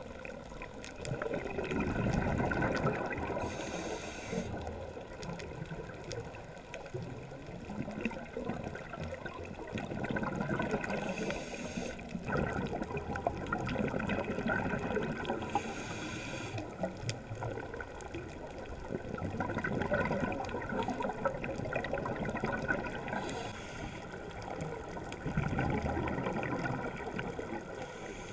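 Scuba diver breathing through a regulator, heard underwater through the camera housing: exhaled bubbles gurgling up in swells every several seconds, with a short hiss of inhalation between them, four breaths in all.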